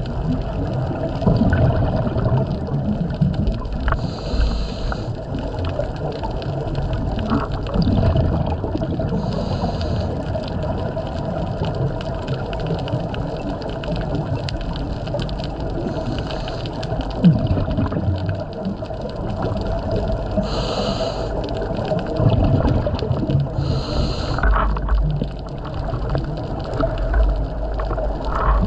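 Scuba diver breathing through a regulator underwater: a short hiss of inhalation every four to six seconds, with low rumbling and gurgling of exhaled bubbles in between.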